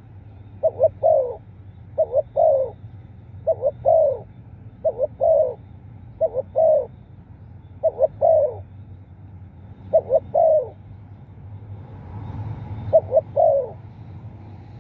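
Spotted dove cooing: a repeated phrase of two short coos and a longer, falling coo, given eight times at intervals of one and a half to two and a half seconds.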